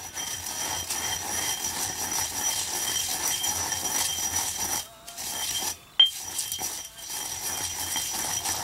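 Stone pestle grinding crushed eggshells, salt and herbs round a stone mortar: a steady gritty scraping with a thin high ringing note over it. It breaks off briefly about five seconds in, with a sharp knock about a second later.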